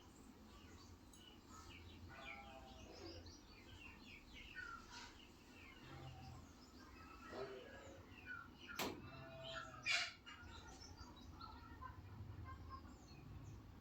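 Faint chirping of small birds, scattered short calls throughout, with two sharp clicks about nine and ten seconds in.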